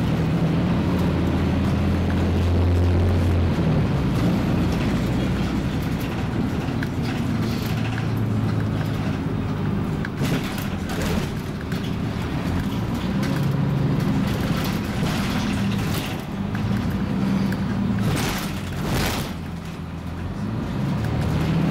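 Scania MaxCi city bus's engine and drivetrain heard from inside the passenger cabin while driving, a steady low drone whose pitch steps up and down several times as the bus changes speed. A couple of brief rushing hisses come through, the longest about three-quarters of the way through.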